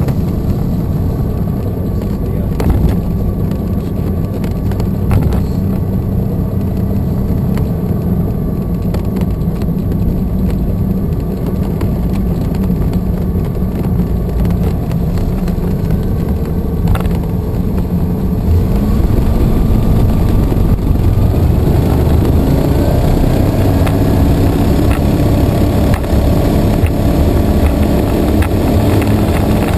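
Propeller engine of a Sting light aircraft heard from inside the cockpit, running with a steady low drone. About twenty seconds in it grows louder and higher as power is increased on the runway.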